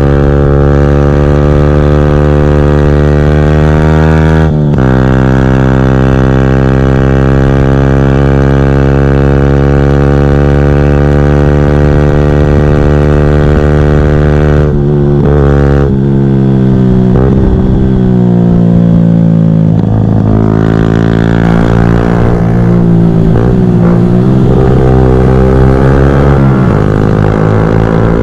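Yamaha YZF-R125 single-cylinder four-stroke engine through a full GPR Furore exhaust with no catalytic converter or baffle, pulling at steady high revs under way. The note breaks briefly about four and a half seconds in and again near the middle, then rises and falls repeatedly through the second half.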